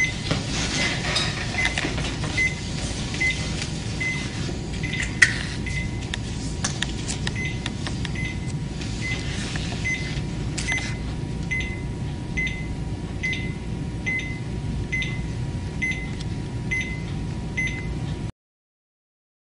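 Cardiac monitor/defibrillator sounding its heart-rate beep, a short high beep about every three quarters of a second (about 80 a minute) in time with the patient's heartbeat, over a steady hum and room noise with a few handling clicks. The sound cuts off near the end.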